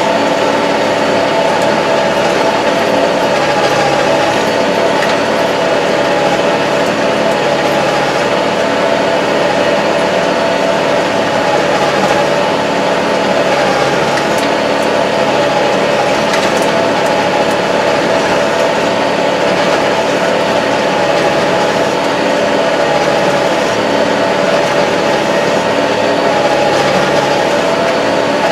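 Kubota MZ755 tractor's diesel engine running steadily under way, heard from inside the closed cab as an even, loud drone.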